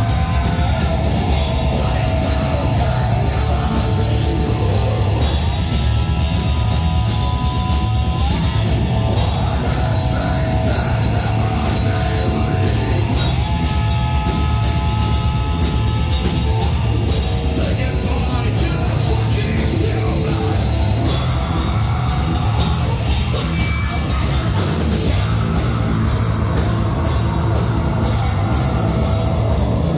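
Live rock band playing loud and without a break: drum kit, bass guitar and electric guitars, with high held notes that slide from pitch to pitch over the drums and bass.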